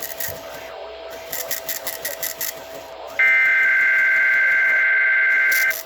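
Radio static hiss, then about three seconds in an Emergency Alert System SAME header: a loud digital data burst of two rapidly alternating tones, lasting about two and a half seconds and cutting off just before the end. It marks the start of a weather radio alert.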